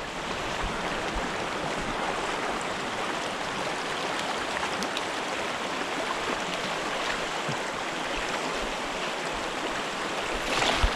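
Mountain creek water running: a steady, even rushing wash.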